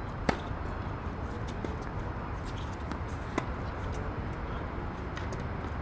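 Tennis racket striking the ball twice: a sharp pop about a third of a second in, and a second, slightly softer pop about three seconds later, over steady outdoor background noise.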